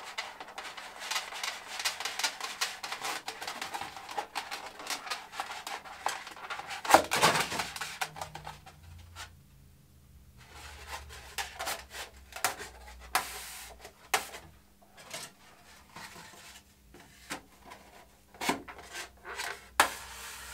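XPS foam sections being handled and slid along a carbon fibre spar rod: foam rubbing and squeaking, with many light knocks and scrapes and one louder knock about seven seconds in.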